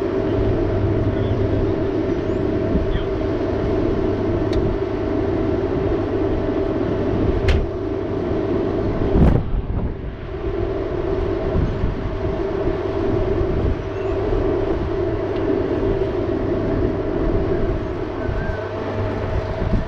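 Diesel engine idling steadily at a constant speed, with two sharp knocks about a second and a half apart around the middle.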